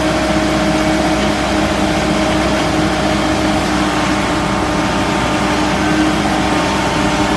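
Directional drilling rig's engine running steadily, a loud, even machine noise with a constant hum.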